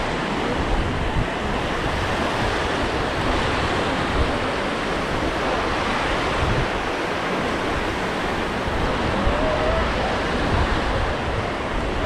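Small waves washing steadily onto a sandy shore, with wind gusting on the microphone underneath.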